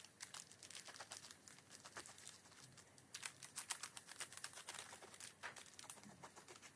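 Pencil scratching faintly on paper in many short, irregular strokes as it traces around the edge of a doily laid on a journal page.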